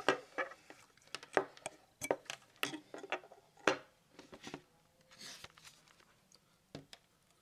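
Small hard clicks and taps as a Gigabyte GC-WB300D wireless PCIe card and its plastic USB header connector are handled and set down on a hard surface: about a dozen sharp clicks over the first four seconds, then a soft rustle.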